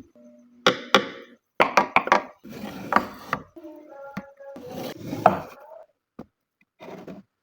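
Wooden pieces being handled on a workbench: a series of sharp, irregular knocks and taps with short scraping sounds between them.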